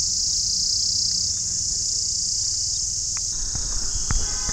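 Steady, unbroken high-pitched chorus of insects shrilling, with a short thump near the end.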